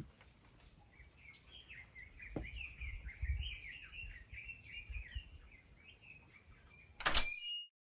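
A small songbird singing a continuous chattering warble, over a faint low rumble. Near the end a short loud burst cuts in, and then the sound stops.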